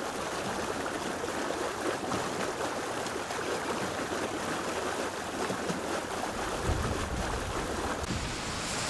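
Floodwater flowing across a flooded street, a steady rushing hiss, with a low rumble joining about six and a half seconds in.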